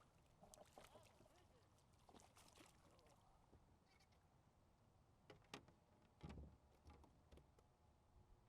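Near silence with faint distant voices in the first second, then a few sharp clicks and a dull low knock about halfway through.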